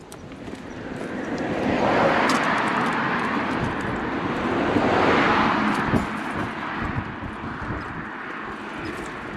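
Passing vehicles: a rushing noise with no clear engine note that swells and fades twice, loudest about two and five seconds in.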